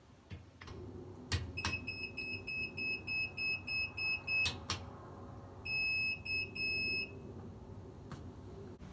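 Beeper of a Vetus e-line electric boat motor's control panel sounding as the system is first switched on: a few button clicks, then a quick run of about ten short high beeps, two more clicks, and three longer beeps. The beeping shows the panel is powered and responding.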